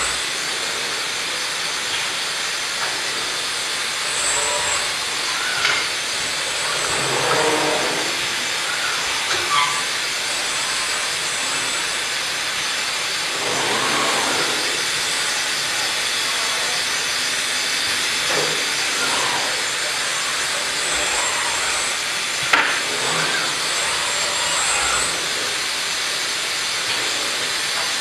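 Steady hiss of exhibition-hall background noise, with faint voices here and there and one sharp click about 22 seconds in.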